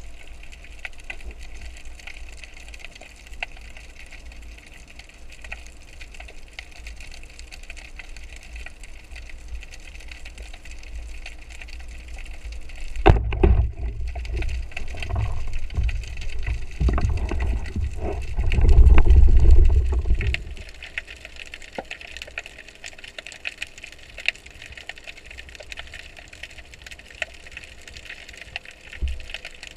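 Underwater hiss and fine crackling. About 13 seconds in, a band-powered speargun fires with a sharp snap, followed by about seven seconds of loud, low churning of water and thumps against the microphone before it settles back to the hiss.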